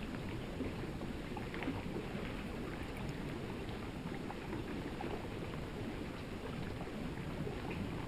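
Shallow river water flowing over its bed: a steady, muffled low rush with many small scattered ticks and pops.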